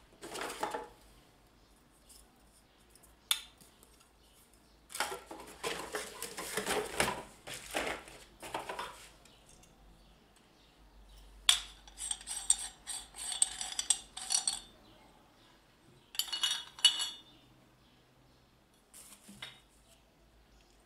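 Metal parts of a meat mincer being handled and clinking together, in a few separate bouts of knocks and rattling. Two short runs of ringing metallic clinks come in the second half.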